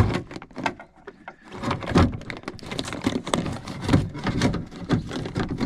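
Irregular knocks, clicks and scraping of a door lock actuator being worked into place inside a car door's hollow shell, with a short lull about a second in.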